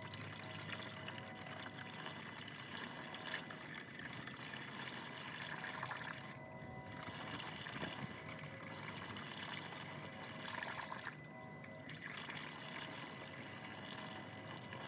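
Coolant pouring steadily from a plastic jug through a funnel into the truck's drained coolant reservoir. The pour eases briefly twice, about halfway through and again a few seconds later.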